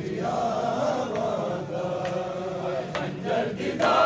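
A crowd of men chanting a mourning noha together in long, wavering lines, swelling louder near the end. Scattered sharp slaps cut through it, typical of hands striking bare chests in matam.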